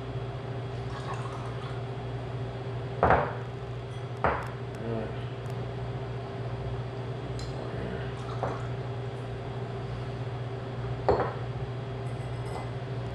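Malt tea poured through a small mesh strainer into a pint glass, liquid trickling and dripping. Sharp glass knocks stand out about 3, 4 and 11 seconds in. A steady low hum runs underneath.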